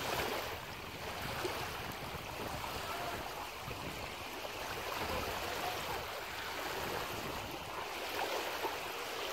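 Small waves lapping and washing over a stony river shoreline, a steady wash that rises and falls gently.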